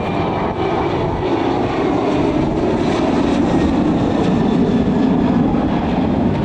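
Aircraft engines at close range: a loud, steady rush with a faint high whine, swelling slightly through the middle.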